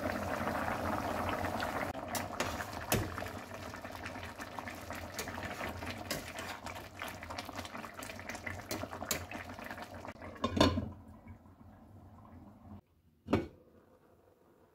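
A pot of khichuri boils hard, bubbling and popping, with a couple of metal knocks, loudest about ten and a half seconds in. After that the bubbling dies down to a faint hiss.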